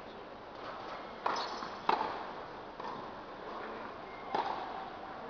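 Tennis ball struck by racket strings and bouncing on the court, echoing in a large hall: sharp knocks about a second in, a louder one about two seconds in, and another just past four seconds.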